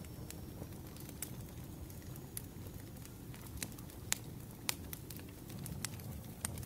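Campfire crackling: irregular sharp pops and snaps over a low steady rumble of the burning wood.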